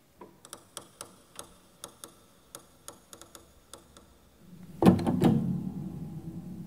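A dozen scattered, irregular sharp clicks and ticks, then, near the end, a loud low struck sound, hit twice in quick succession, that rings on as a deep hum.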